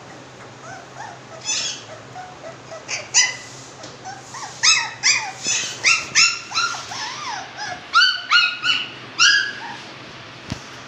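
Young puppies yipping and yelping: a run of about fifteen short, high-pitched cries, several of them falling in pitch, coming thickest through the middle and later part.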